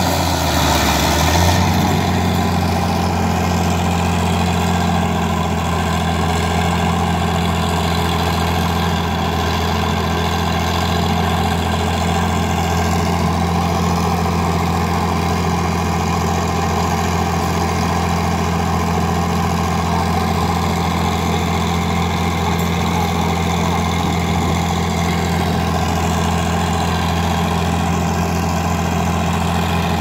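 Tractor diesel engines running close by. They are under a heavier load in the first second or two, as the tractors strain to pull the stuck combine, then settle to a steady idle.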